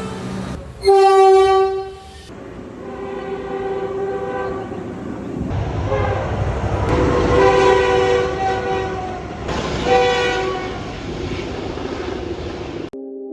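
Train horn sounding several long blasts over the low rumble of a moving train. It cuts off suddenly near the end.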